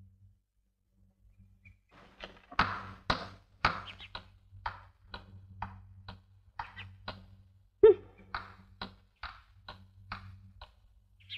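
A run of light knocks and taps, roughly two a second, with one sharper ringing knock about eight seconds in, over a faint low hum.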